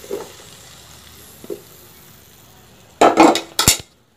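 Cauliflower florets sizzling faintly in hot oil and ghee in a pan, with a small knock about halfway through, then a loud clatter of metal cookware near the end.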